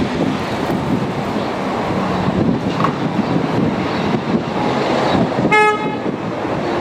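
Class 37 diesel locomotive running as it approaches, its English Electric engine giving a steady rumble mixed with wind on the microphone, and one short toot of its horn about five and a half seconds in.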